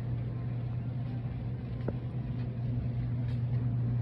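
Steady low hum of a grocery store's background noise, one low tone with a fainter one above it, and a single faint tick about two seconds in.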